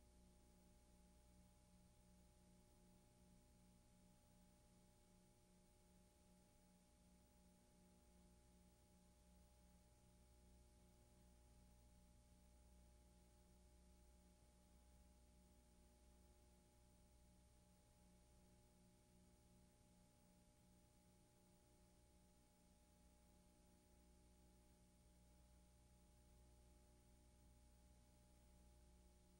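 Near silence: only a faint, steady electrical hum and hiss, with no sound of the storm.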